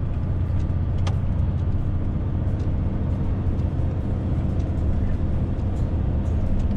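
DAF XF 530 truck's straight-six diesel running steadily under load, heard from inside the cab while descending a steep mountain grade in eighth gear. A single light click comes about a second in.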